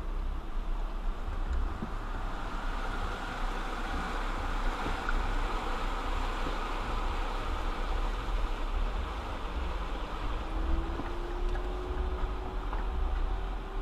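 A 4x4 vehicle driving slowly along a rough mountain trail in four-wheel-drive low range: a steady low engine and drivetrain rumble with tyre-on-gravel noise, and a faint tone rising slowly near the end.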